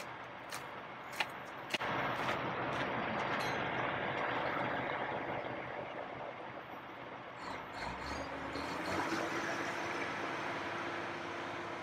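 Heavy diesel machinery running steadily, with a few sharp clicks in the first two seconds and a steady tone coming in over the last few seconds.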